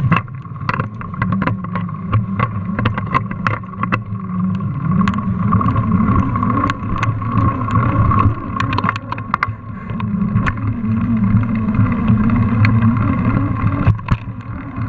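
Mountain bike rolling over paving, heard through a bike-mounted GoPro: a steady low rumble with many irregular sharp rattling clicks.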